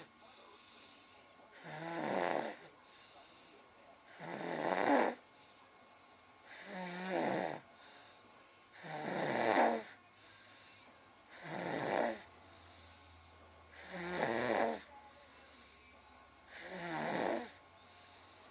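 A sleeping boy snoring in a slow, regular rhythm, about one snore every two and a half seconds. Each snore builds up and then stops abruptly, with quiet breaths between.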